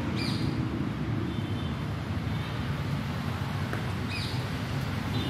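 Steady low outdoor rumble, with two short falling bird chirps, one just after the start and one about four seconds in, and a faint thin high call between them.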